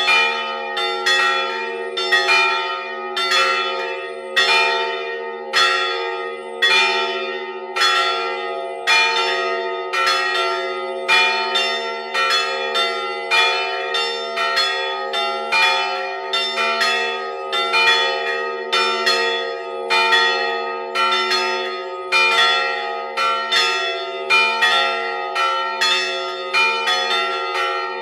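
A peal of three swinging bronze church bells, struck by their clappers and heard close up inside the belfry. The bells weigh about 258, 112 and 90 kg and are tuned roughly to B-flat, E and E-flat. The strikes come unevenly and overlap, about one to two a second, over a long ringing hum.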